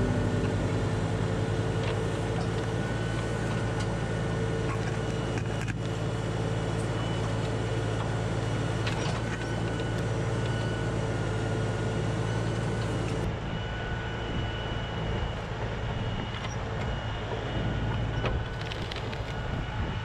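LS compact tractor's diesel engine running steadily as it powers the backhoe, with a few brief knocks.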